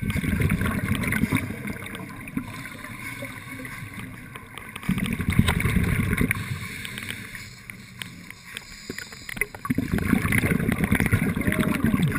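Scuba diver's regulator breathing heard underwater: three rushes of bubbling, crackling exhaled air about every five seconds, with quieter spells between breaths.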